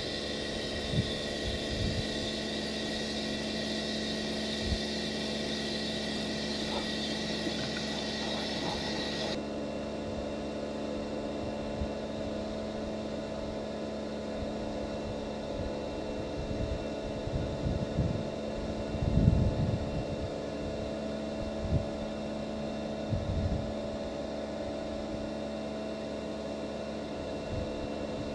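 Electric pressure washer running with a steady motor-and-pump hum. For about the first nine seconds the high-pressure jet hisses against the concrete floor, then the hiss drops away. A few low bumps come near the middle.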